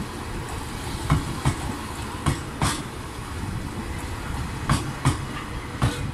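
The E001 series Train Suite Shiki-shima passing at slow speed: a steady low rumble with sharp clicks, mostly in pairs, as its wheels cross rail joints.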